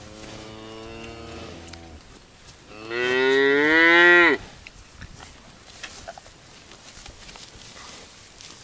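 Cattle mooing: a softer moo in the first two seconds, then a loud one about three seconds in that rises in pitch and drops away before stopping suddenly.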